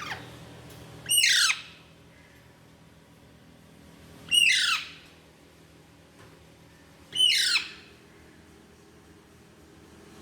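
Young Alexandrine parakeet giving harsh, downward-sliding squawks, three loud calls about three seconds apart, each about half a second long, with a fainter one at the very start.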